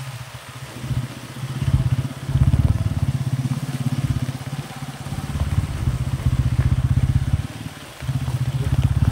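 Motorcycle engine running while under way, a low pulsing note that swells and eases as the throttle changes.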